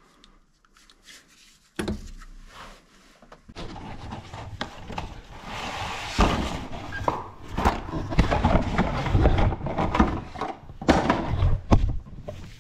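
Knocks and clatter of tools and metal parts being worked under a car while a rear shock absorber is unbolted and taken down: one sharp knock, then a few seconds later a steady run of clanks and scraping.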